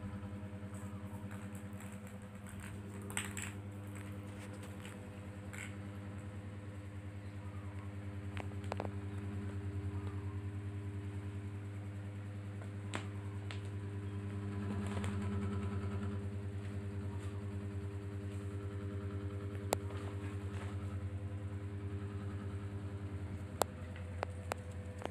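A steady low mechanical hum, like a small engine idling. Near the end come a few sharp clicks as the kitten bats the ball in a plastic ball-track toy.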